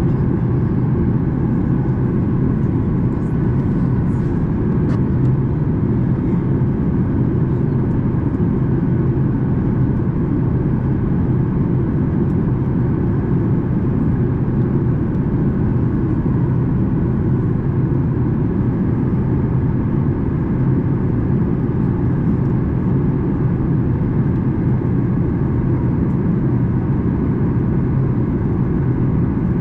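Steady cabin noise inside a Boeing 737 MAX 8 airliner on descent for landing: a constant rush of airflow mixed with the drone of its CFM LEAP-1B turbofan engines, over a low steady hum.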